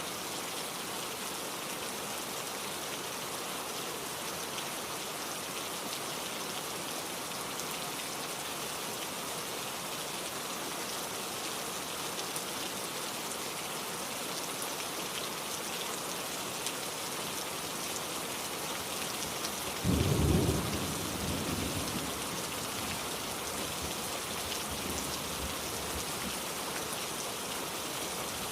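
Steady rain falling, with one thunderclap about twenty seconds in that rumbles and fades over a couple of seconds.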